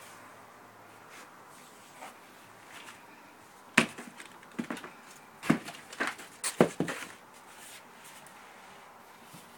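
Knocks and clatter of framed paintings being handled as one is lifted away and the next is set down in its place: a sharp knock about four seconds in, then several more over the next three seconds.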